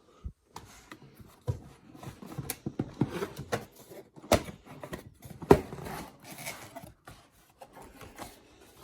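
Handling of a boxed toy lightsaber's packaging: an irregular run of knocks, taps and sharp clicks with rustling between them.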